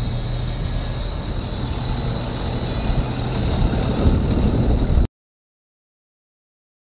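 Flatbed truck engine running close alongside, with street traffic noise, growing louder over the first five seconds. Then all sound cuts off abruptly to dead silence.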